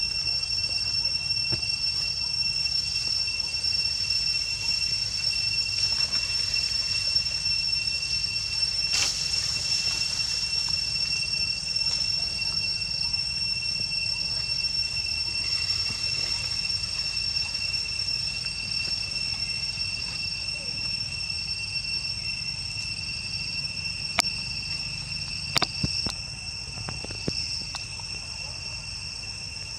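Insects trilling: one steady high-pitched trill, with another insect chirping in short, evenly spaced pulses over it. A few sharp clicks near the end.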